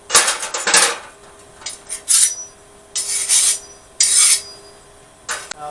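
Hand strokes of a file or abrasive scraping across the steel blade of a forged smatchet, about six separate strokes roughly a second apart.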